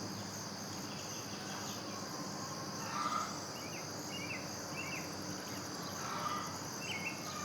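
Crickets chirring in a steady high trill, with short bird chirps about three seconds in and again near the end, over a faint low steady hum.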